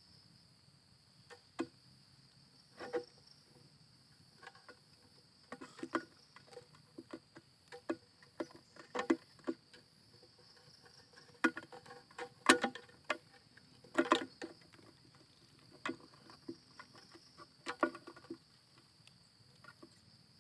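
Garden insects keep up a steady high-pitched trill. Over it come irregular taps and rustles, the loudest about twelve and fourteen seconds in.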